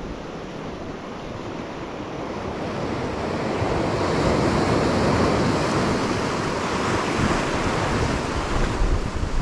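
Sea surf breaking and washing over shoreline rocks, swelling louder about three seconds in as a bigger wave surges through, with wind buffeting the microphone.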